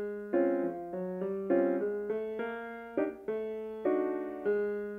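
Background music: a piano playing a slow run of chords, a new chord struck roughly every half-second to second and left to fade.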